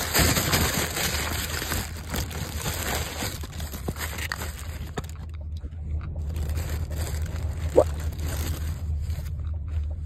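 Thin paper wrapper crinkling and rustling as a small toy is unwrapped, busiest in the first half, with one short click near the end. A steady low rumble from the car runs underneath.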